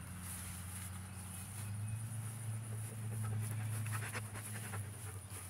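A dog panting close by, in quick rhythmic breaths that grow plainest a little past halfway, over a steady low hum and a steady high-pitched buzz.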